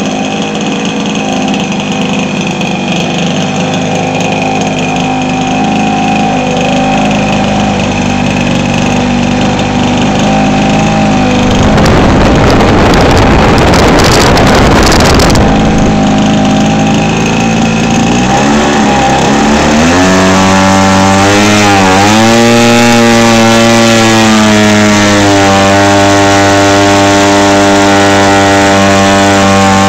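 Zenoah G26 26cc two-stroke gas engine with magneto ignition, cowl off, running in a quarter-scale J-3 Cub model airplane. It runs steadily, with a few seconds of loud rushing noise about twelve seconds in. Later the engine speed swings up and down for a few seconds, then holds steady.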